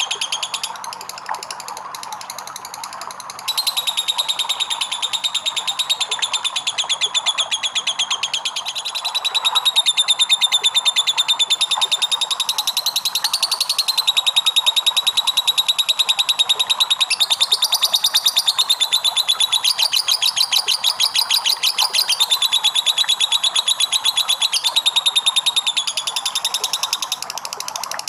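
Lovebird ngekek: a long, unbroken, rapid high-pitched chattering trill. It is softer for the first few seconds, then comes in loud and keeps going without a break.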